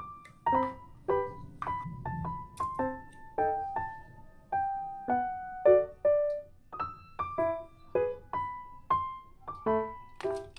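Background piano music: a gentle melody of single struck notes, about two a second, each ringing out and fading.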